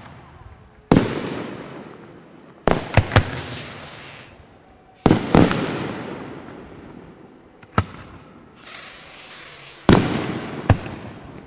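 Aerial firework shells bursting with sharp bangs, some singly and some in quick pairs or threes, each followed by a rolling echo that fades over a second or two. A hissing crackle runs briefly just before the loud bang near the end.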